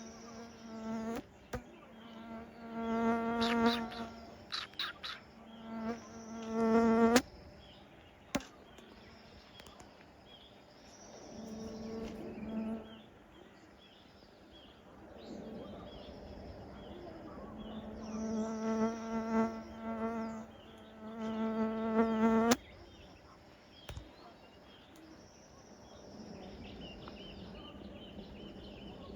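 A flying insect, such as a fly or bee, buzzing close to the microphone. The buzz swells and fades as it passes, then stops abruptly about seven seconds in; it returns from about fifteen seconds in and stops abruptly again about twenty-two seconds in. Faint high chirping continues underneath.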